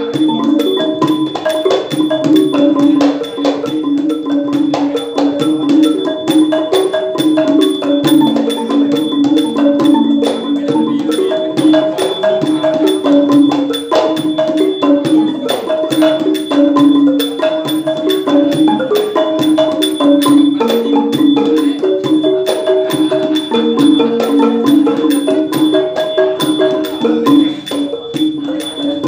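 Ranat thum, the Thai low-pitched boat-shaped xylophone, played with padded mallets in a fast, unbroken run of mellow low wooden notes. A hand-played barrel drum and small Thai hand cymbals (ching) keep time, the cymbals leaving a steady high ring above.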